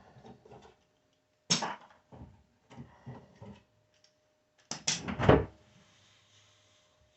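Knocks and thumps of wooden drawers and drawer fronts being handled during installation: one sharp knock, a few lighter taps, then a quick cluster of louder knocks near the end. A faint steady hum runs underneath.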